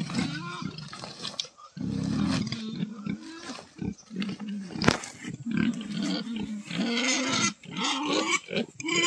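Pig grunting over and over while it waits for food, with rustling of leafy greens being pulled from a woven feed sack. One sharp knock about five seconds in.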